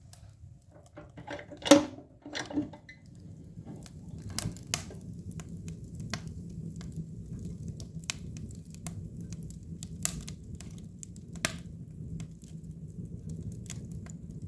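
Wood fire crackling in a cast-iron stove: a low steady rumble with irregular sharp pops and clicks throughout, and a couple of louder knocks about two seconds in.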